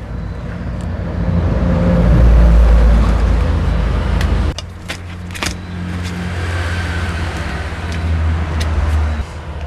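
A motor vehicle engine running with a low steady hum, swelling over the first few seconds and then dropping back. About halfway through come a few sharp clicks as a nylon cable tie is pulled tight.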